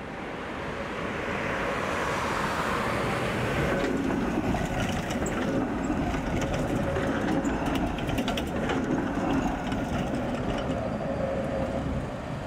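Tatra KT4D articulated tram passing close by on street track. Its rumble builds over the first few seconds, and a quick run of wheel clicks over rail joints comes in the middle. The sound eases a little near the end as the tram moves away.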